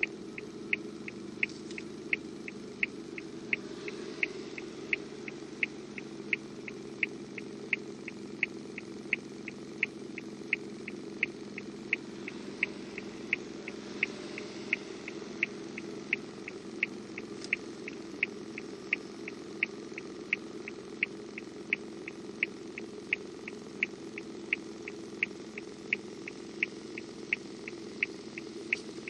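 A car's turn-signal indicator ticking steadily at about two clicks a second, heard inside the cabin over the low, even hum of the engine idling while the car stands still.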